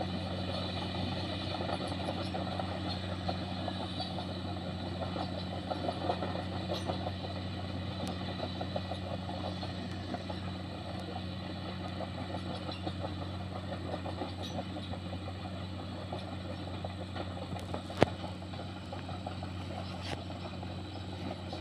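Komatsu hydraulic excavator's diesel engine running at a steady pitch as the machine tracks away, growing slightly fainter. A single sharp tap near the end.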